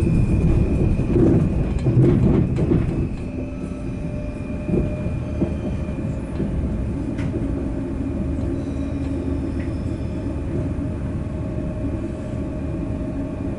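Interior of a Stadler FLIRT electric train pulling out of a station: a low rumble of the wheels on the track, loudest for the first few seconds, with a few steady tones from the drive running above it.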